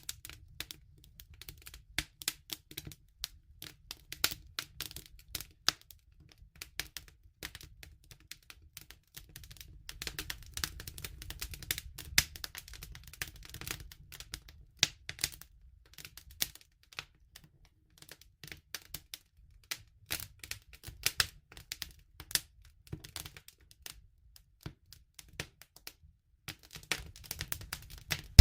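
Wood fire crackling: a steady run of irregular sharp pops and snaps over a low rumble, thinning out for a couple of seconds near the end.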